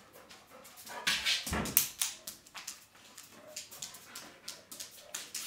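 A pet dog gives a short whimper about a second in, followed by a dull thump and a scatter of light clicks and knocks.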